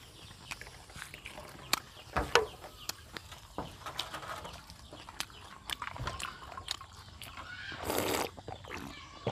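Close-miked eating sounds: a run of sharp mouth clicks and smacks while chewing. About eight seconds in comes a half-second slurp as a drink of soda is sipped from a glass.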